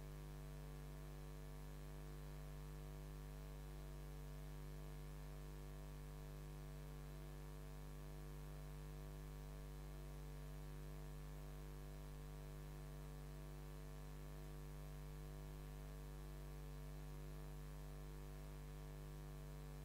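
Steady electrical mains hum with many overtones over a faint hiss, unchanging throughout.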